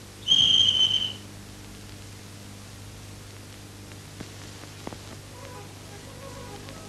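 A whistle blown in one short steady high blast lasting under a second, over the hiss and hum of an old film soundtrack. Faint music comes in near the end.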